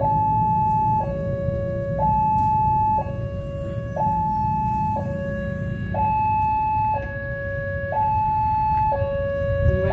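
Railway level-crossing warning siren sounding a two-tone hi-lo alarm, switching between a higher and a lower tone about once a second, a sign that a train is about to pass. A low rumble runs underneath.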